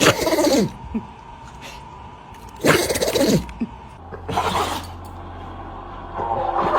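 A dog sneezing three times. Each sneeze is a sharp burst that trails off into a short falling tone, and the third is weaker than the first two.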